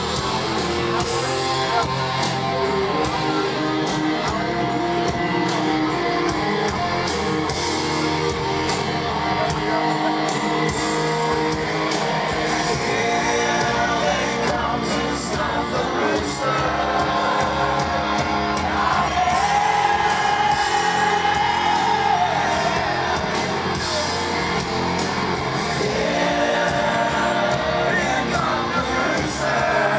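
Rock band playing live through a PA, heard from within the audience: electric guitars, drums and a lead singer. A long held sung note comes about two-thirds of the way through.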